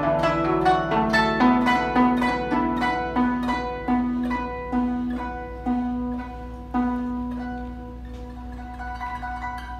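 Guzheng, a Chinese plucked zither, played solo: quick runs of plucked notes slow to single notes about a second apart. A low note plucked about seven seconds in is left ringing and fading, with a few soft notes near the end.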